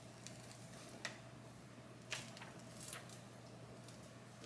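Faint crackles and ticks of a DTF transfer film sheet being peeled off a heat-pressed print on a hoodie: three small clicks over a low steady hum.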